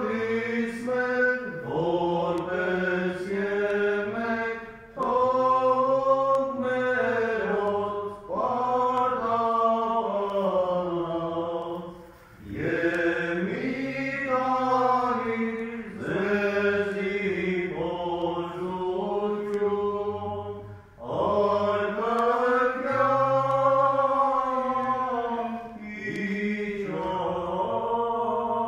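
Armenian Apostolic liturgical chant of the requiem service: a sung line carried in long, bending phrases, with brief breaks between phrases a few seconds apart.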